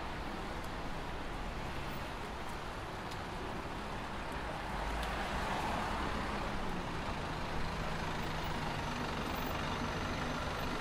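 City street traffic: a steady wash of vehicle noise with the low hum of a large engine, growing louder about halfway through.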